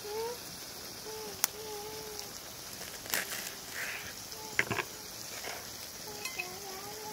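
Liver and vegetables sizzling as they fry in a pan, with a few sharp clicks of a utensil against the pan, including a quick cluster about two-thirds of the way in. A faint wavering tone comes and goes in the background.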